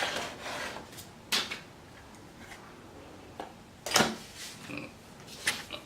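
A small product box being opened and its contents handled: a few sharp knocks and clicks of cardboard and packaging, with light rustling in between.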